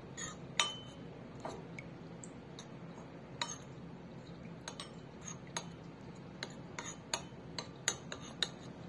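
Metal spoon clinking against a ceramic bowl while stirring a lemon-juice and mustard dressing, with light, irregular clinks about twice a second.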